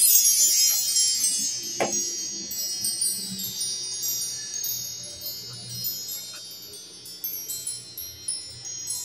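Wind chimes tinkling, a shimmer of many high ringing tones that comes in suddenly and slowly fades away. A single soft knock about two seconds in.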